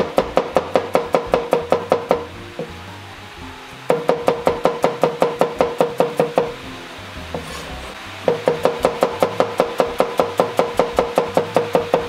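Rectangular cleaver chopping garlic cloves and shallots in three quick runs of about six or seven strokes a second. Each stroke is a sharp knock with a short ringing tone.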